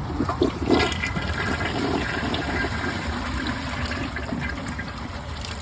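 2018 Mansfield Summit dual flush toilet flushing with a wristband in the bowl: a surge of water starting under a second in, then a steady rush of water draining through the bowl.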